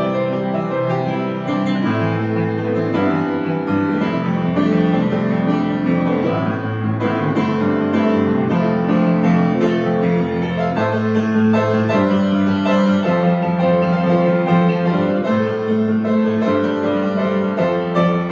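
Instrumental music led by piano, with held chords that change every second or two.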